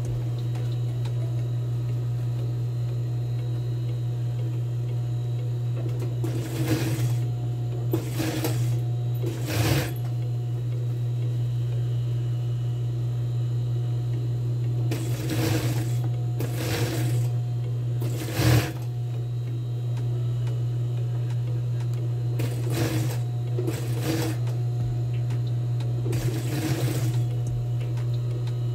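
Industrial sewing machine topstitching a skirt waistband in short runs: about nine brief bursts of stitching at uneven gaps over a steady low motor hum.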